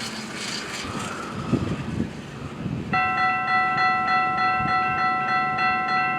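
Train rumbling past, then about three seconds in a railroad crossing bell starts ringing, a steady bell tone that pulses about three times a second.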